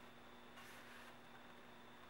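Near silence: room tone with a faint steady hum, and a brief faint hiss a little after half a second in.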